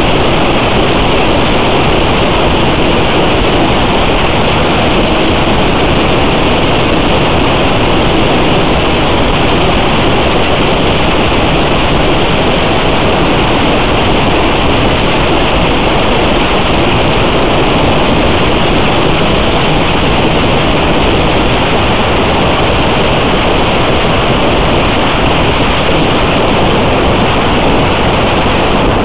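Steady, loud hiss with no pitch or rhythm, cut off above the treble: static from the audio channel of an analog FPV video link recorded on the DVR, with no motor or wind tones in it.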